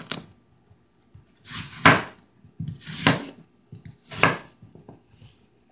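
Chef's knife cutting through a green apple on a cutting board: several separate cuts, about one a second.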